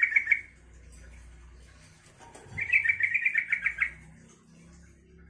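Yellow-vented bulbul (trucukan) singing its bubbly, chattering song: the end of one phrase right at the start, then a second, longer phrase of rapid notes about two and a half seconds in.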